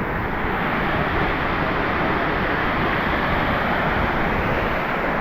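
Shannon Falls waterfall rushing steadily, a strong, even roar of falling water.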